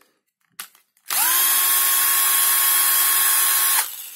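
Sakuma cordless drill/driver's motor triggered after a small click: it spins up with a quick rising whine, runs steadily for under three seconds and stops. It runs strongly on its rebuilt 18650 lithium-ion battery pack.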